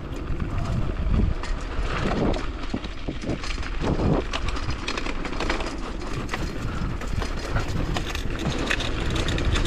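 Bicycle rattling and clattering as it is ridden over a rough track, with many small knocks over a continuous rumble of wind on the microphone.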